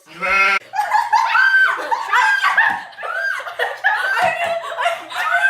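Several girls laughing hard together, with high-pitched giggles overlapping. A short high cry opens it.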